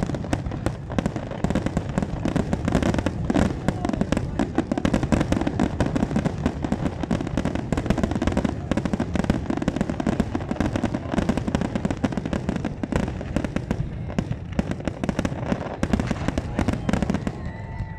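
Fireworks going off in a dense, continuous barrage of bangs and crackles, many per second. The bangs thin out near the end, where a brief high steady tone sounds.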